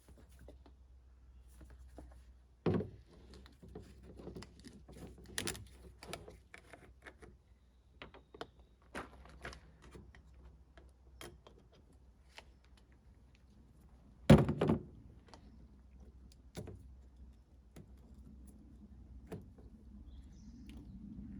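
Handling noises: scattered clicks and knocks, with two louder thumps about three seconds and fourteen seconds in.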